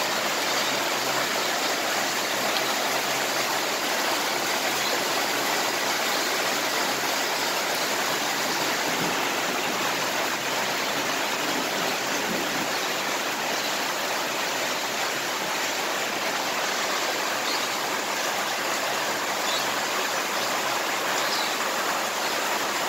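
Heavy tropical downpour: rain falling in a steady, even rush with no let-up.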